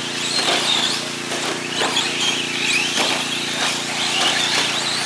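Radio-controlled 4x4 short course trucks racing on dirt: their motors whine, rising and falling in pitch as they speed up and slow down, with scattered short clacks, over a steady low hum.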